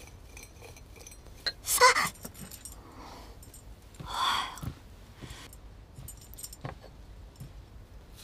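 Light clinking and tapping of herb-preparation tools and dishes on a worktable, with two louder short sounds, about two and four seconds in.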